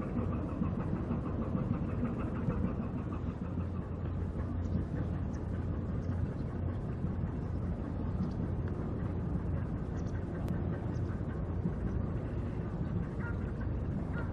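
Small cargo ship's diesel engine running steadily, a low drone with a fine rapid pulsing in the first few seconds.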